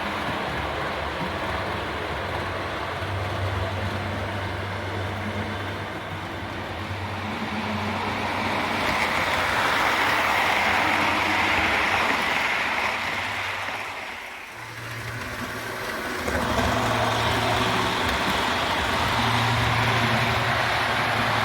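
HO-scale Proto 2000 Alco PA model locomotive running on track: a steady motor hum with wheels rolling on the rails. It dips briefly about fourteen seconds in, then comes back.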